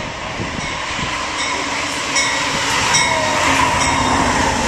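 Amtrak GE P42DC diesel locomotive pulling into the station close by, a steady, slowly building rumble of engine and wheels with regular clicks about every 0.8 seconds from wheels crossing rail joints.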